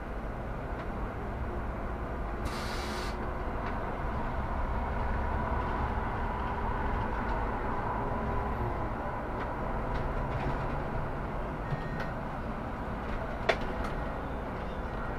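Solaris Urbino 18 articulated city bus under way: a steady engine and road rumble, with a short hiss about two and a half seconds in and a single sharp click near the end.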